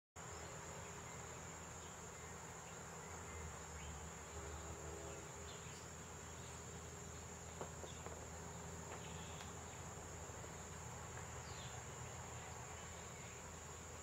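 Insects trilling steadily in one high, unbroken tone, with a low rumble underneath.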